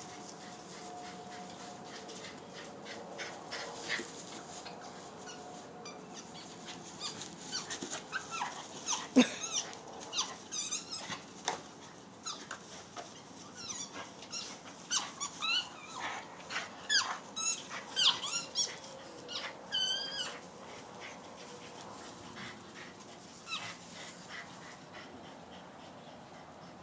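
An animal giving many short, high-pitched whines and yelps, in a cluster through the middle of the stretch, the loudest about nine seconds in.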